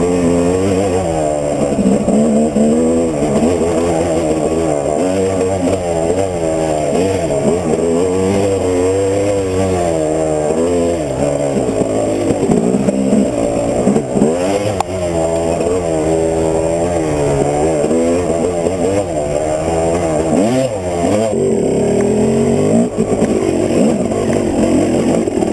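2005 Yamaha YZ250 single-cylinder two-stroke dirt-bike engine, fitted with an FMF Q Stealth silencer, being ridden hard on a trail: the revs climb and drop again and again every second or two as the rider works the throttle through the turns and climbs.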